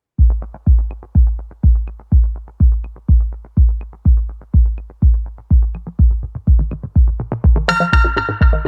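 Electronic dance music with a steady, deep kick-drum beat about twice a second. Near the end a sustained synth chord comes in over the beat.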